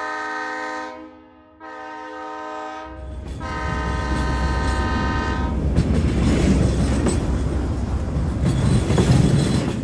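A train horn sounds twice: one blast fades out about a second in, then a second long blast follows from about three seconds to nearly six. After that comes the steady low rumble of a train running.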